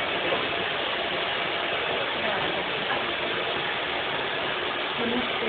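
Hand-held hair dryer blowing hot air steadily during a blow-dry.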